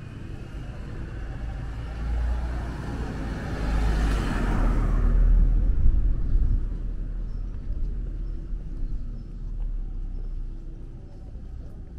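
A road vehicle passing close by, growing louder to a peak about four to six seconds in and then fading away.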